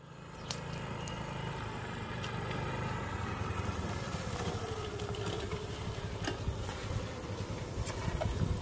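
Small motor scooter engine running as the scooter rides up and slows to a stop, its note falling in pitch as it slows.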